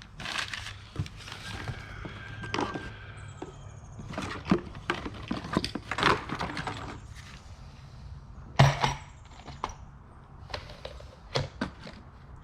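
Small hardware and boxes being handled and rummaged through: a steady run of clicks, clinks, rustles and knocks, with one sharp, loud knock past the middle.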